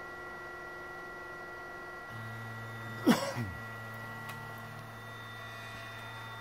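FLSun QQS-Pro delta 3D printer running its auto-leveling routine: a steady electrical hum, with a lower hum joining about two seconds in. About three seconds in comes one short, loud sound that drops steeply in pitch.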